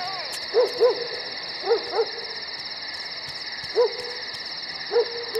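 An owl hooting in short calls, first in two quick pairs and then singly, over a steady, high, pulsing drone.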